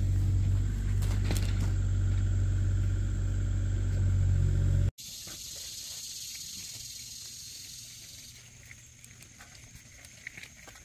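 Outdoor background noise: a steady low rumble for about five seconds, which cuts off suddenly, followed by a quieter steady hiss that fades near the end.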